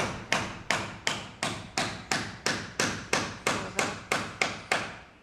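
Construction hammering: steady hammer blows, about three a second, each with a short ringing tail, then the hammering stops.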